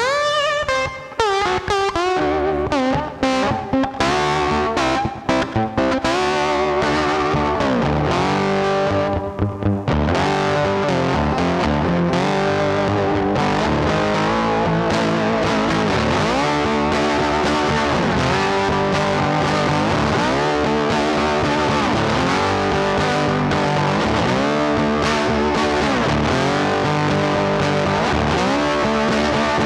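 Background music: distorted electric guitar playing with effects, with bending, sliding notes and a few sharp stops in the first ten seconds before running on steadily.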